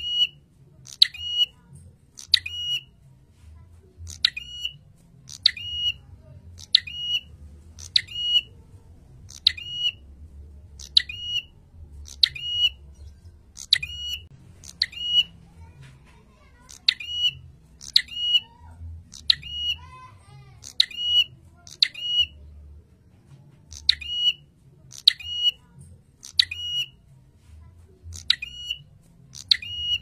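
Ashy tailorbird (prenjak kepala merah) singing: a loud, sharp two-part note, a clipped click-like chip straight into a short high whistle, repeated about once a second. There is a pause of about two seconds roughly three-quarters of the way through.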